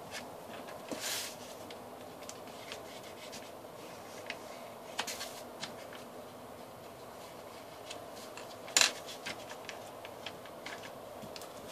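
Sheet of paper being folded and creased by hand: rustling, rubbing and scattered small clicks, with one sharper crinkle about nine seconds in.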